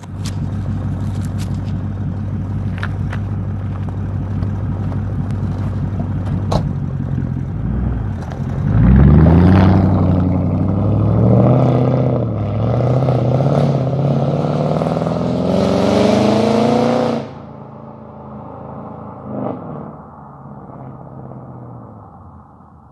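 Mercedes-Benz CLK55 AMG's straight-piped 5.4-litre V8 idling, then revving about eight seconds in and accelerating hard away. Its pitch climbs for several seconds, then drops off suddenly and fades into the distance.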